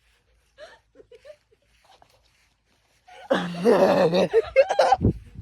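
People laughing and yelling excitedly in a loud burst of voices starting about three seconds in, after a quiet stretch with a few faint sounds.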